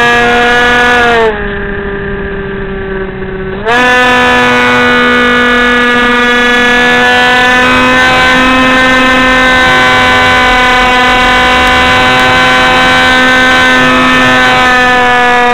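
Electric brushless motor and 7x6 propeller of a Teksumo flying wing, heard close from the onboard camera: a loud, steady high whine. About a second in it drops in pitch and level as the throttle is eased off, then snaps back up near four seconds and holds steady.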